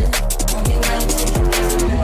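Liquid drum and bass music: a fast breakbeat with crisp snare and hi-hat hits over a deep sub-bass line and sustained synth pads.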